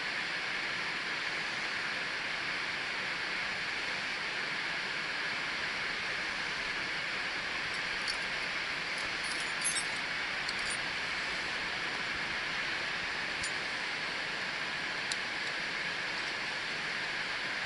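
A steady rushing hiss, with a few faint, light metallic clinks of climbing carabiners and quickdraws: a cluster about eight to eleven seconds in and single clinks later on.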